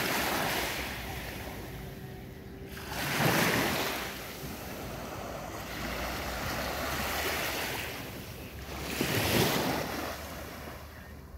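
Small waves washing onto a sandy beach, with wind on the microphone; the sound swells twice, about three and nine seconds in.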